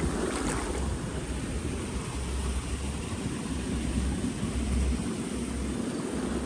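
Wind buffeting the microphone over a steady hiss of outdoor noise.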